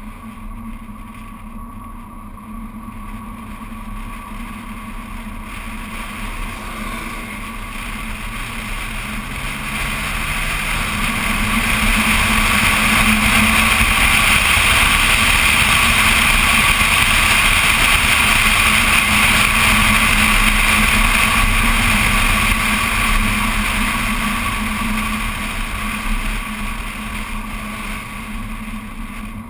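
BMW Z4 Coupé driving on an open road, heard through a camera mounted on the car's outside: a steady rush of wind and road noise with the engine underneath. It builds over the first ten seconds or so, stays loudest through the middle and eases off near the end.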